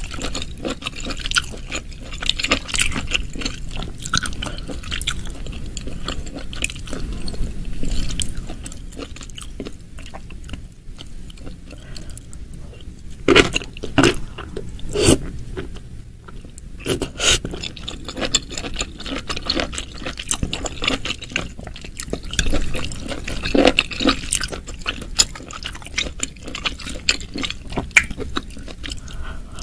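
Close-miked eating of mushrooms in thick spicy sauce: wet chewing and sauce-laden mouth sounds, with sharp clicks and smacks, a cluster of loud ones about halfway through.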